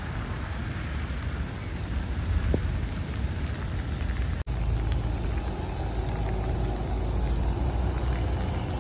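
Steady rain falling on a wet street, with traffic tyres swishing on the flooded road and a low rumble throughout. The sound drops out briefly about halfway through, and the rumble is stronger afterwards.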